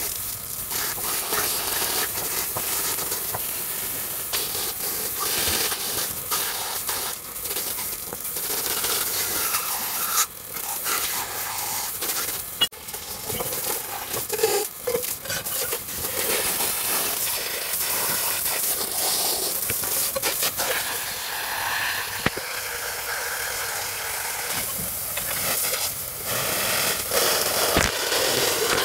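Water from a garden hose splashing onto metal EGR valve parts and wet concrete, a steady hissing spatter that shifts as the parts are turned in the stream. The parts are being rinsed of soot and diesel after a diesel wash.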